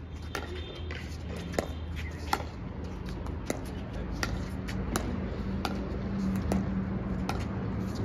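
Pickleball rally: a series of sharp pops as solid paddles strike the hollow plastic ball, roughly one or two a second at uneven intervals, some louder and some fainter, over a low steady hum.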